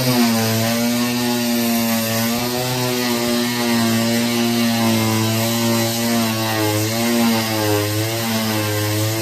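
Electric hand power tool motor running loud and steady at full speed, its pitch wavering slightly now and then as it is worked.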